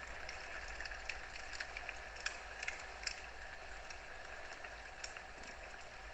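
Wood fire burning in a fireplace: a steady hiss broken by irregular sharp crackles and pops, a few of them louder in the middle.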